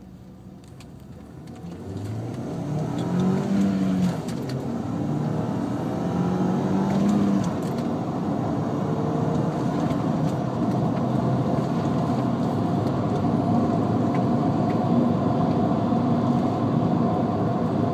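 Audi A4 1.8T's turbocharged four-cylinder engine heard from inside the cabin, rising in pitch as the car accelerates, dropping briefly at a gear change about four seconds in and rising again, then settling into a steady drone of engine and road noise at speed.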